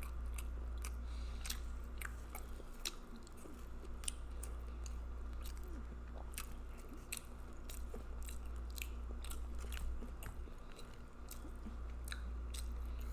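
Close-miked chewing and wet lip-smacking while eating a seafood boil: many short, sharp smacks at an uneven pace.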